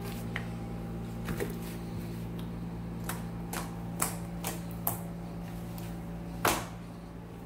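Thick fluffy slime being squeezed and stretched by hand, giving irregular sharp pops and clicks as trapped air bursts, the loudest near the end. A steady low hum runs underneath.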